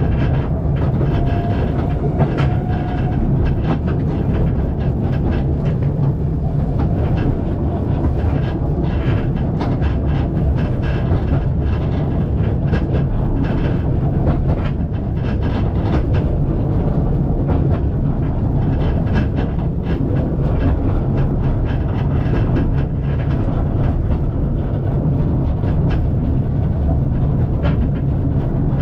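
The End of the World Train, a narrow-gauge steam railway, running along: a steady low rumble of the carriage with the wheels clicking over the rail joints.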